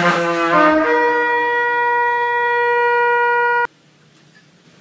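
Small coiled hunting horn blown: a few quick notes climbing in pitch, then one long held note of about three seconds that cuts off suddenly.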